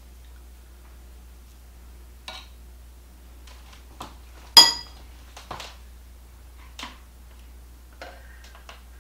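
Metal utensils clinking against ceramic plates and the stoneware crock of a slow cooker: scattered light knocks, with one louder ringing clink about halfway through and a short scrape of a ladle in the crock near the end.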